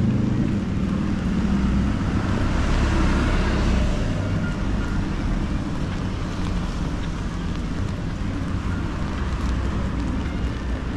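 Road traffic on a wet street: tyres hissing on the wet asphalt, swelling as a vehicle passes about two to four seconds in, over a low rumble of wind on the microphone.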